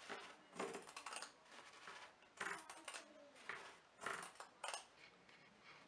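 Pinking shears cutting through fabric: about six separate, faint snips, unevenly spaced.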